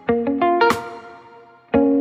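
Background music: short phrases of plucked notes, each struck sharply and fading before the next phrase begins about every second and a half.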